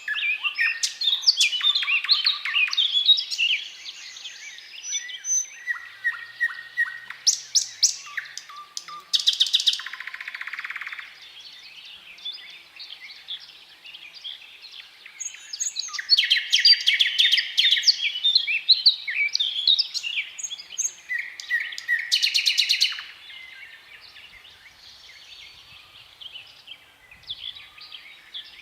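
Nightingale singing a run of varied phrases separated by short pauses: fast series of repeated clicking notes, trills, and a low buzzy rattle about ten seconds in. The phrases get softer for the last few seconds.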